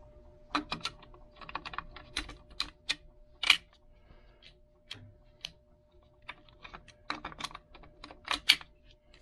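Irregular clicks and clacks of a Ruger Precision Rimfire's metal and polymer parts being handled and worked by hand, with a few sharper snaps. This is a function test after a new magazine release has been fitted.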